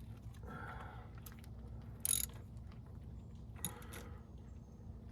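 Hand work on engine parts: scattered short clicks and scrapes over a faint low hum, with a sharp clack about two seconds in and another about a second and a half later.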